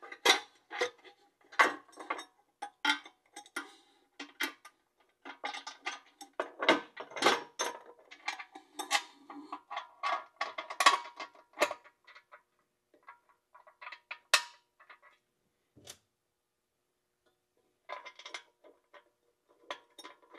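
Metal clinks, taps and knocks as the crankshaft and its bearings are worked into the steel case of a Koenders windmill diaphragm compressor, some strikes ringing briefly. The clinks come thick for the first dozen seconds, then only a few isolated ticks, and pick up again near the end.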